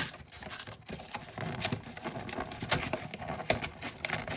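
Fingers scratching and picking at the taped seam of a cardboard box, with many irregular taps and clicks of the cardboard; a sharper click right at the start.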